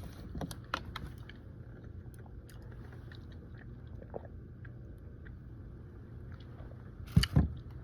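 A person chewing food close to the microphone, with small wet mouth clicks, and a couple of louder sharp bite or knock sounds about seven seconds in.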